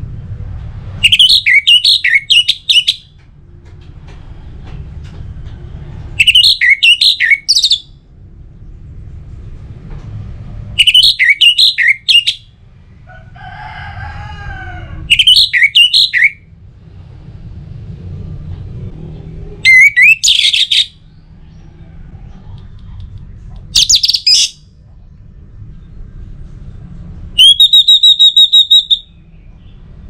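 Orange-headed thrush singing: seven short, loud phrases of rapid warbled whistles, one every four or five seconds, the last a steady high whistle repeated in quick pulses. A faint low hum lies underneath.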